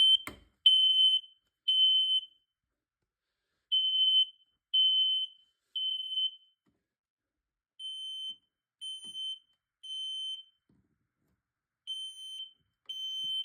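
Smoke alarm sounding its temporal-three evacuation pattern: repeated groups of three high-pitched beeps, each about half a second long, with a pause of about a second and a half between groups. It has been set off by aerosol test spray.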